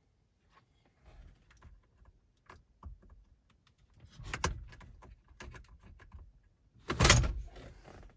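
Wiring cables and plastic connectors being handled, with scattered clicks and rustling and a louder burst of rattling about seven seconds in.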